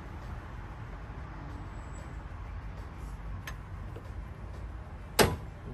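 A bolt on the Nissan Micra K11 engine cracking loose under a long breaker bar: one sharp metallic crack about five seconds in, with a faint click a couple of seconds before it, over a steady low background rumble.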